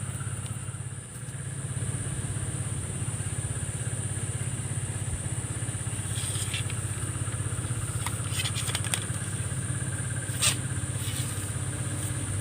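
A small engine running steadily with a low, fast, even pulse, under a steady high-pitched whine.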